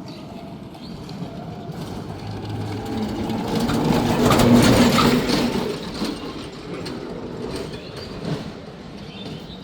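A vehicle passing by, growing louder to a peak about halfway through and then fading away.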